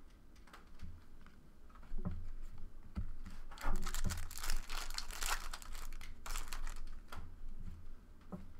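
A trading-card pack wrapper being torn open and crinkled by hand, an irregular crackling that starts about two seconds in and goes on in bursts until near the end.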